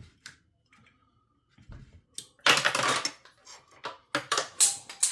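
Metal tools and small parts clinking and rattling on a workbench: a loud clatter about two and a half seconds in, then several sharp clinks and knocks.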